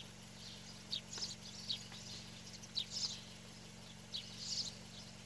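Faint, scattered short high bird chirps, several over a few seconds, over a steady low hum.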